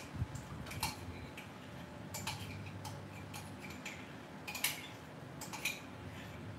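A spoon knocking and scraping against a metal pot at irregular intervals, about eight sharp clicks, while stirring purple corn pudding that has turned very thick with cornstarch.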